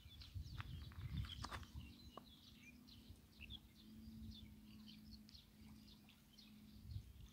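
Faint chirping of small birds, many short high calls scattered throughout, over a low rumble.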